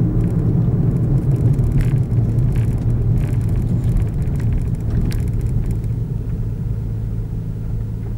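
Car driving slowly along a worn, disused stretch of road: a steady low rumble of engine and tyres, with a few faint clicks, that slowly eases over the second half as the car slows.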